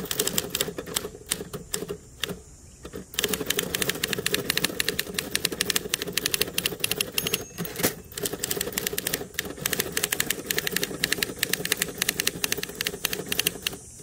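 1960s Torpedo 18B portable manual typewriter being typed on fast: a rapid stream of key and typebar strikes. The strikes stop for about a second, about two seconds in, then run on unbroken.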